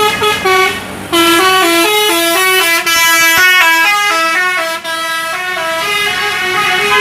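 Bus 'telolet basuri' musical air horn playing a fast running melody of stepped notes, several tones sounding together. There is a short break about a second in, then the tune runs on.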